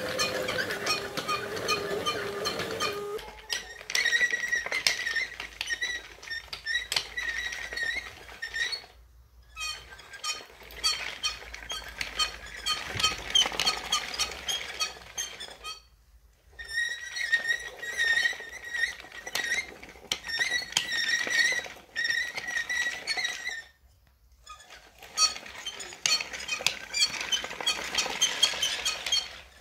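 Wooden tank tracks running: many small clicks of the wooden track links passing over the sprocket and road wheels, with a sustained high squeal. It goes in runs of several seconds broken by short pauses, and a lower hum in the first three seconds gives way to the higher squeal.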